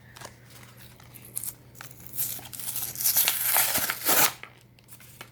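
A foil Yu-Gi-Oh booster pack wrapper crinkling in the hands and then torn open by hand, a loud crackly tearing that runs for about two seconds starting around two seconds in.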